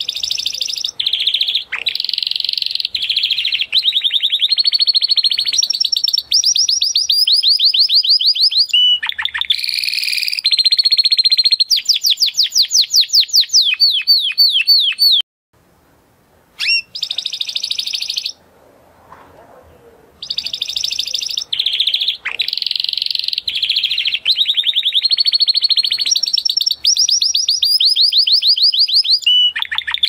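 Spanish Timbrado canary singing long phrases of rapid trills and rolling repeated notes. It breaks off for a few seconds around the middle, gives one short note, then sings again.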